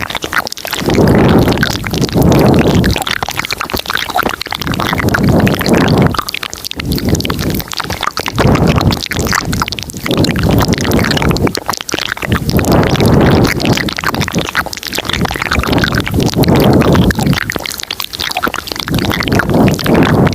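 Layered ASMR mouth sounds recorded very close to the microphone, coming in repeated wet bursts about a second long, one every second or two.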